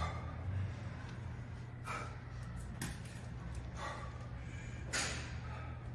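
Heavy breathing from a weightlifter's exertion: about five sharp, hissing breaths roughly a second apart, over a steady low hum.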